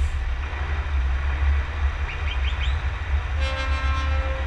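Steady low rumble of a Scania truck's engine and wind at the cab roof, with a few short rising chirps, then about three and a half seconds in a multi-note truck air horn starts blowing a steady chord.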